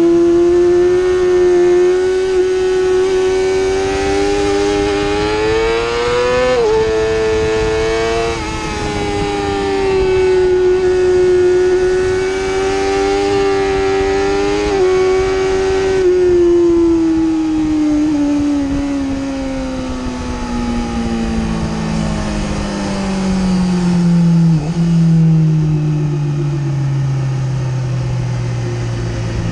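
Yamaha YZF-R6 inline-four engine heard from onboard with wind rush, held high with a couple of quick pitch steps in the first half. In the second half it winds down steadily as the bike slows.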